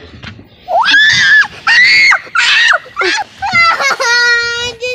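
A child shrieking: three short, very high-pitched screams in quick succession, followed by a long held, wavering wail.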